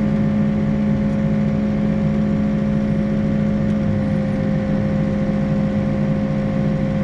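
Backhoe's diesel engine running at a steady speed, with a constant hum and no revving.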